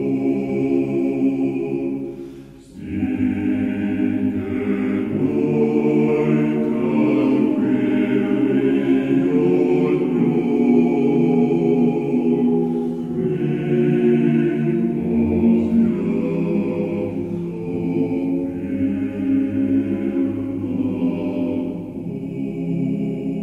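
Men's choir singing a cappella in sustained chords, with a brief break for breath about two and a half seconds in.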